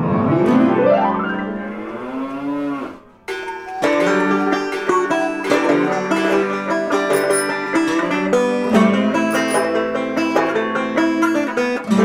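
Background music with plucked strings. It opens with a long wavering, sliding tone for about three seconds, then a steady picked string tune starts.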